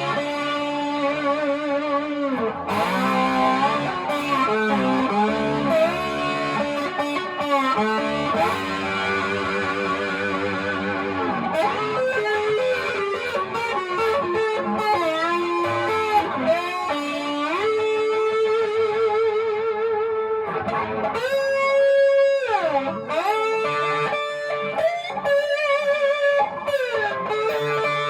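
Slide guitar playing: notes glide up and down between pitches and are held with a wide, wavering vibrato, the slide worn on an injured finger.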